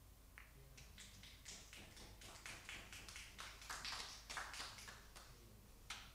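Faint scattered clapping from a few people. It starts about half a second in, builds to its thickest after three or four seconds, then dies away, with one last clap near the end.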